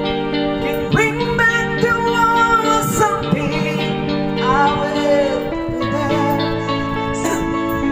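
A singer's voice over backing music with sustained chords, the melody held in long wavering notes; the chords change about five and a half seconds in.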